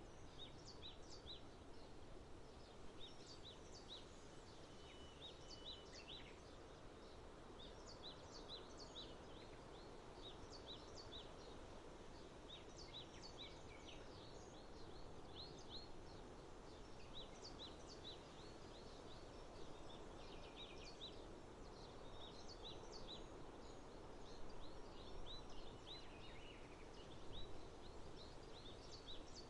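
Small birds chirping repeatedly in quick short notes over a faint, steady low background hum.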